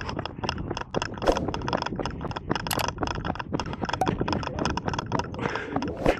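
A horse's hooves beating in a quick, continuous run of knocks, with a hissing rush rising near the end.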